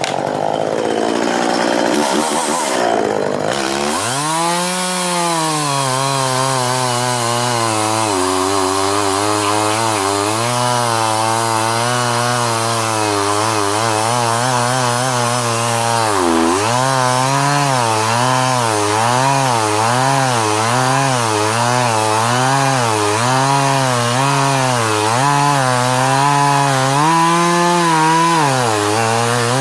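Gas chainsaw with a newly fitted chain cutting through a log. The engine note rises about four seconds in, then rises and dips over and over as the chain bites, with a short drop in revs about sixteen seconds in.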